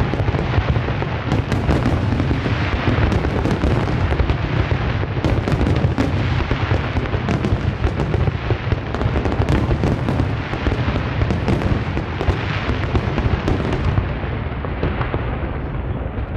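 Fireworks display: a dense, continuous barrage of aerial shell bursts, many rapid bangs and crackles over a low rumble, thinning out near the end.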